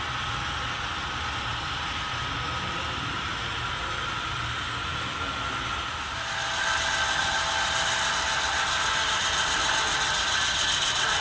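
Model train running on the layout: a steady mechanical whir of the locomotive's motor and gearing and its wheels on the rails, growing louder about six and a half seconds in.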